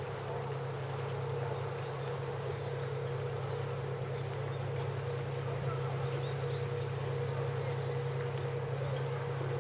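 Steady low droning hum of a running motor, with a thin higher hum held over it.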